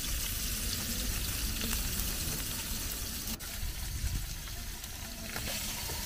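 Mullet sizzling as it fries in hot oil in a shallow pan, a steady crackling hiss. A single sharp tick comes about three and a half seconds in.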